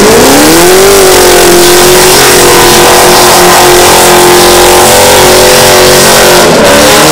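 Holden Commodore SV8's V8 doing a burnout, very loud: the revs climb in the first second, are held high and steady with the rear tyres spinning, then drop near the end.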